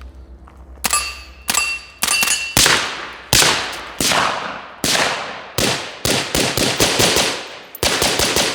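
Suppressed rifle firing a string of shots, each crack followed by a long echoing tail. The first few shots carry a ringing tone, and the shots come faster, in quick runs, through the second half.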